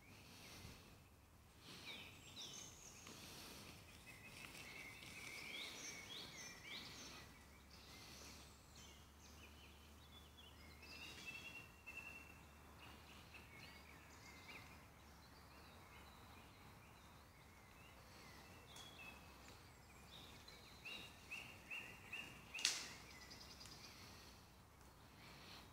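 Quiet woodland with faint songbirds chirping and trilling on and off, and one sharp click near the end.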